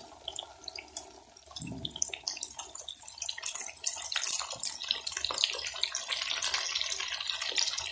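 Diced potatoes deep-frying in hot oil in a wok: a dense crackling sizzle of many small popping bubbles, growing louder from about three seconds in.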